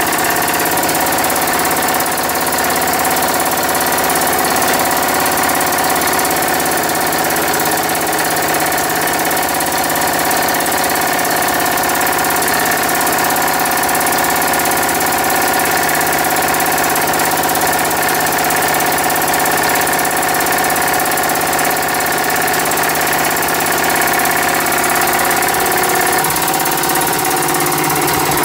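Mamod-based horizontally opposed twin-cylinder model steam engine running steadily under steam, a continuous fast mechanical running sound at an even speed.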